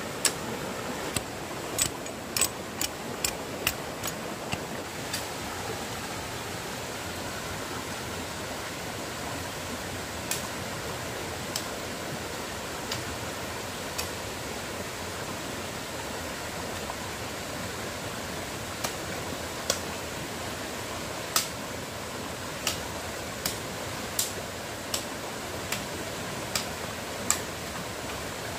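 Shallow stream rushing steadily over rocks, with sharp chops of a machete blade on a thin branch: a quick series in the first few seconds, then scattered single knocks.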